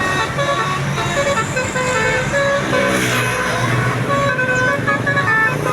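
Tour bus's multi-tone telolet horn playing a quick tune of short notes that step up and down in pitch, with the bus engine running low underneath.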